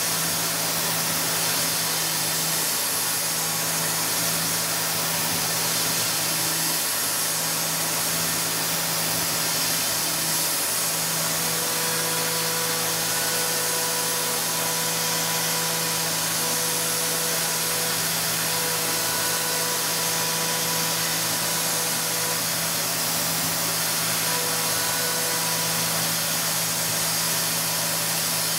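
Tormach 770 CNC mill cutting a metal part with an end mill: a steady spindle hum under a continuous high hiss from the nozzle aimed at the cutter. Thin higher whining tones come and go through the second half as the cut moves.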